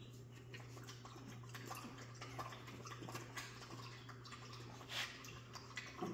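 Jack Russell puppies moving about: faint, scattered scratching and clicking of paws and claws on the floor and bedding, over a steady low hum.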